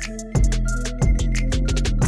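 Electronic background music with a steady drum-machine beat, ticking hi-hats and held bass and synth notes.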